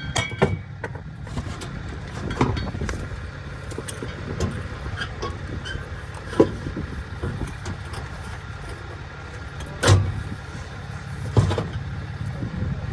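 Scattered sharp metal knocks and clinks from work on a car's exhaust mid pipe, the loudest about ten seconds in, over a steady low rumble.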